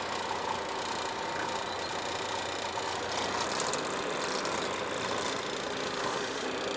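Semi truck's diesel engine running at low, steady revs while the rig backs slowly toward a loading dock.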